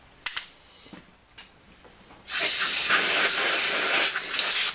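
Compressed-air blow gun blasting chips out of a milling-machine vise: a steady hiss that starts about two seconds in and cuts off sharply near the end, after a few light clicks.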